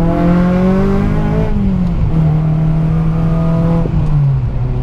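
2008 Honda Civic Si's 2.0-litre four-cylinder, fitted with 2008 Acura TSX camshafts and a catless header, accelerating, heard from inside the cabin. The engine note rises, drops at a gear change about a second and a half in, holds steady, then falls again a little after four seconds.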